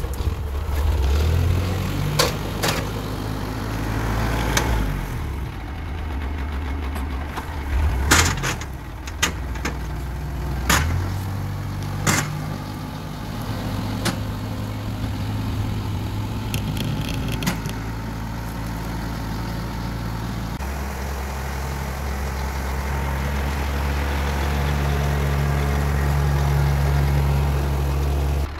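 Farm tractor's engine running steadily while it drags a felled live oak tree on a chain; its note changes a couple of times, at about a third of the way in and again about two-thirds in. Sharp knocks and cracks come in the first half and stop well before the end.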